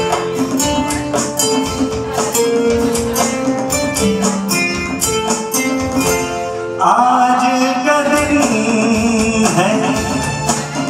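Live band playing an instrumental interlude of a Hindi film song: quick, even percussion strikes under a melody line. About seven seconds in, the music suddenly swells louder into a fuller, busier passage.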